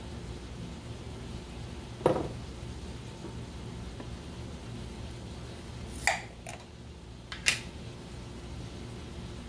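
A jar of Alfredo sauce knocking against a pot as it is emptied: one dull knock about two seconds in, then two sharper clinks a second and a half apart near the end, over a steady low hum.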